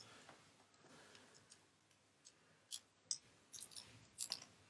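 Faint, scattered clicks and light taps of small metal phone parts and screws being handled on a work mat, one at the start and a cluster of about half a dozen in the second half.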